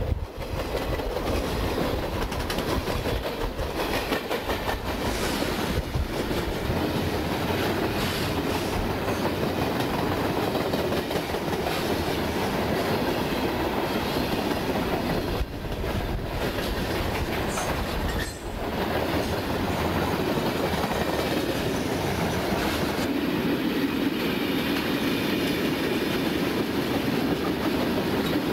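Freight train cars rolling past, a steady rumble and rattle of steel wheels on the rails, with two brief dips about halfway through.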